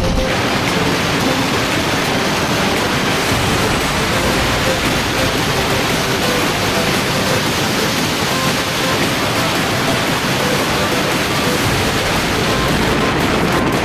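Steady wind noise rushing over the camera microphone on an Ather 450X electric scooter ridden at about 90 km/h.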